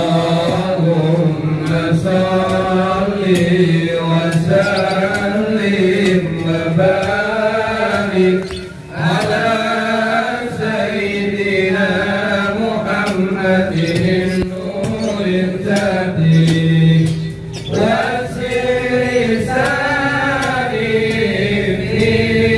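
A man's voice chanting in long, wavering melodic phrases, with short breaks about 9 and 18 seconds in.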